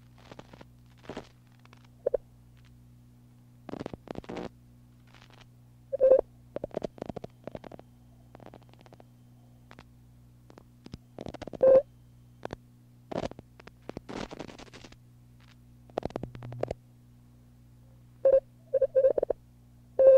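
Harsh noise music: a steady low electrical hum under irregular, short crackling bursts and clicks, a few carrying a brief mid-pitched tone, loudest about six seconds in, near twelve seconds, and in a cluster near the end.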